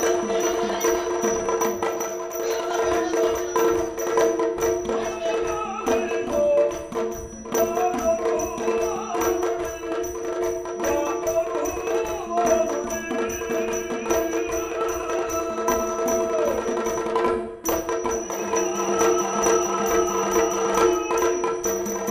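Yakshagana accompaniment music: a steady drone with a hand drum and small cymbals keeping a brisk rhythm, and a wavering melody line over it in the middle of the passage. The music breaks off for a moment near the end.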